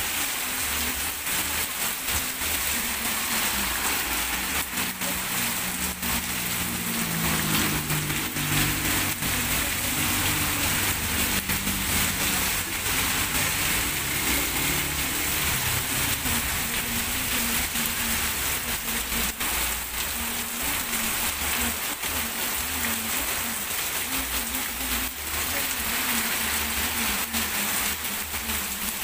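Heavy rain pouring steadily onto a wet street, a dense hiss with fine pattering. A motor vehicle's engine passes by about seven to fourteen seconds in.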